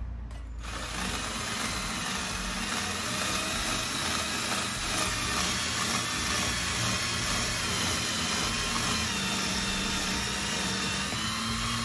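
Power drill with a step drill bit boring a 1/4-inch hole through acrylic sheet: a steady motor whine with the hiss of the bit cutting plastic. It starts about half a second in.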